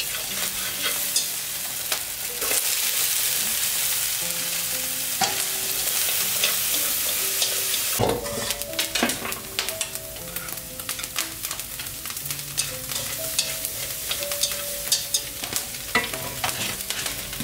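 Food sizzling in a hot frying pan while it is stirred, with frequent clicks and scrapes of a utensil against the pan. About halfway through the sizzle drops and the clicks come closer together.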